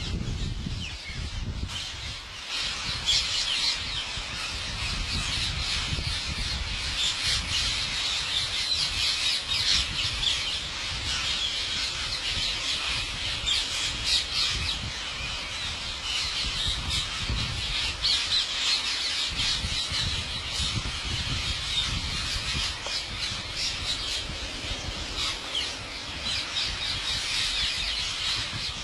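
A flock of parrots squawking and chattering continuously, many shrill overlapping calls.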